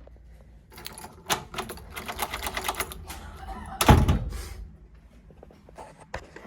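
Door hardware being worked: a quick run of clicks and rattles from a newly fitted lever lock and door, then one loud thump about four seconds in, like the door shutting, and a few faint ticks after it.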